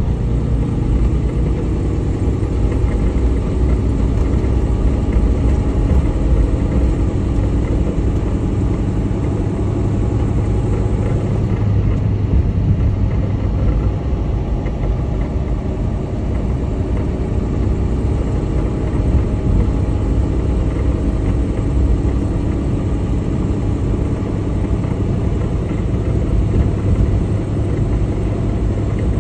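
Semi-truck's diesel engine and tyre noise heard from inside the cab while cruising: a steady low rumble.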